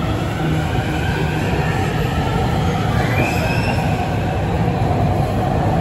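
Beijing Subway Line 6 train pulling out of the platform, a steady rumble as it gathers speed, with a brief rising wheel squeal about three seconds in.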